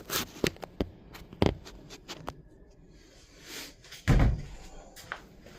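Knocks, clicks and a brushing scrape as a dryer vent cleaning brush is worked into the vent duct, with one heavier thud about four seconds in.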